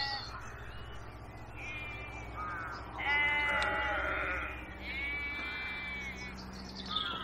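An animal calling repeatedly: about six drawn-out, wavering cries, the longest over a second, over a steady low hum.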